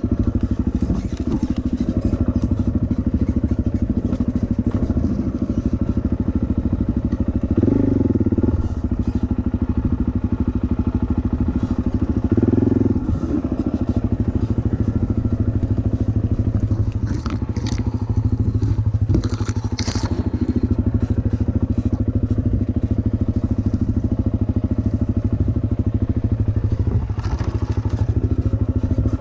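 Suzuki dirt bike engine running steadily at low revs on a rough trail, briefly swelling louder about 8 seconds and 12 seconds in. A few sharp knocks and scrapes stand out about two-thirds of the way through.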